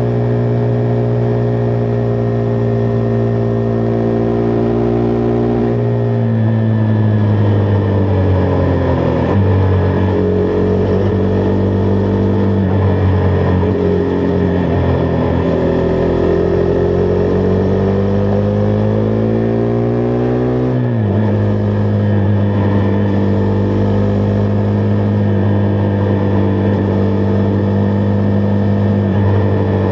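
Husqvarna Vitpilen 401's single-cylinder engine running under way. It holds a steady pitch at first, falls off about six seconds in, wavers and slowly climbs again, drops sharply about 21 seconds in, then holds steady.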